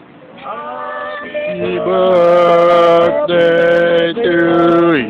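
Small band of men singing together in harmony to acoustic guitars, with long held notes. The singing comes in about half a second in, breaks briefly twice, and the last note slides down near the end.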